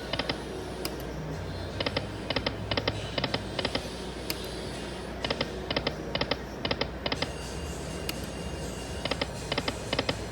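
Aristocrat Lightning Link slot machine spinning: on each spin five short reel-stop tones in quick succession, one spin about every three and a half seconds, over casino background noise.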